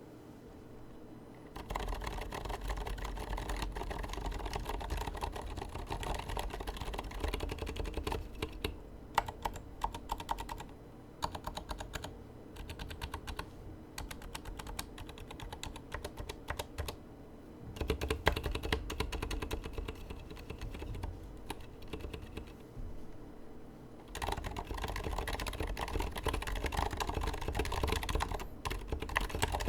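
Typing test on a Leopold FC980M mechanical keyboard with Aqua Zilent silent tactile switches and MT3 keycaps: a fast run of quiet keystrokes. It starts about a second and a half in, thins to scattered keystrokes midway, pauses briefly, then picks up again.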